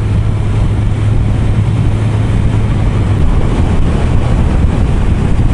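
Motorcycle engine running steadily at cruising speed on the open road, with wind noise over the microphone; the engine note drops slightly about three seconds in.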